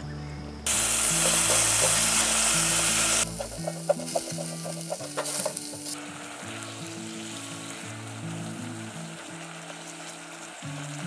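Stir-fry of pork and vegetables sizzling in a metal camping pot on a portable gas stove. A loud burst of sizzling starts suddenly about a second in and lasts about two seconds. Then a spatula stirs and scrapes against the pot in quick clicks, and a quieter steady sizzle carries on, under background music.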